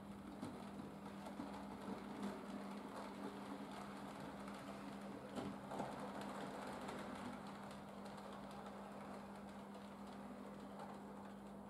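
Model railway train running past on the track: a small electric motor whirring and wheels clicking over the rail joints, over a steady low hum, easing off near the end.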